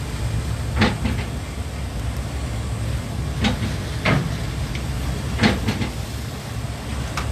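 A boat being hit by waves: a steady low rumble, with about five separate knocks and bangs spread unevenly through it.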